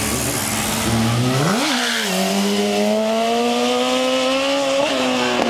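Yamaha R1 sportbike's inline-four engine accelerating hard through the gears: the pitch climbs, drops at a gear change about a second and a half in, then climbs steadily again until another shift near the end.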